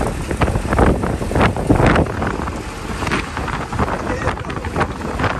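Wind buffeting the microphone in uneven gusts over a steady low rumble.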